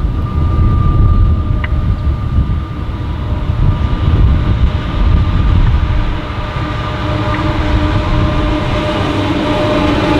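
Several Pacific National NR-class diesel-electric locomotives, coupled together at the head of a freight train, running as they come up and pass close by. A deep, continuous engine rumble, with a steady whine that grows stronger in the second half as the locomotives draw alongside.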